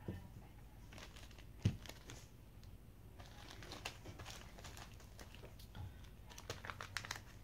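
Clear plastic jewelry bag crinkling faintly as it is handled, with a single light knock about two seconds in and busier crinkling in the second half.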